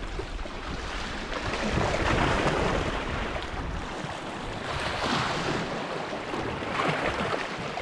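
Sea waves washing onto the shore, swelling and falling back every few seconds, with wind buffeting the microphone.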